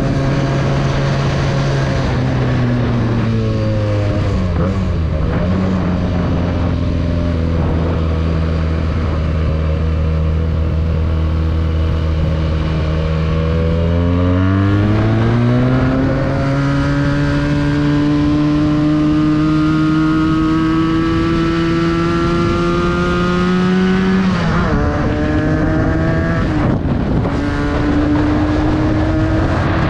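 Benelli 302S parallel-twin motorcycle engine heard on the ride. It slows and settles to a low, steady idle for about ten seconds, then pulls away, rising in pitch through the gears, with a shift or two near the end.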